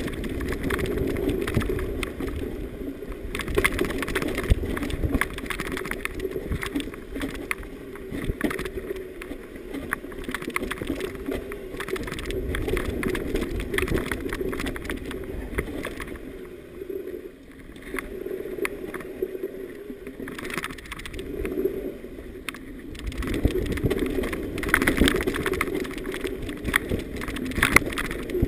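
Mountain bike riding fast over a rough, bumpy dirt trail: tyres rolling over dirt and dry leaves while the bike rattles and knocks over the bumps, with a brief quieter stretch past the middle.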